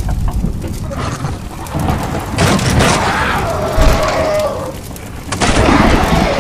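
Cinematic intro sound effects: a deep booming rumble like thunder, with harsh, loud bursts about two and a half seconds in and again about five and a half seconds in.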